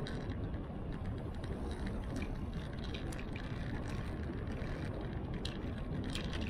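Wind and road rumble on a bike-mounted action camera's microphone while cycling, steady throughout, with a few scattered light ticks and rattles.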